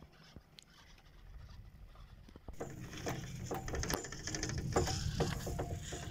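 Fixed-grip double chairlift running: the haul rope and sheaves give a low rumble with a rapid clicking rattle. The sound sets in about two and a half seconds in and grows louder.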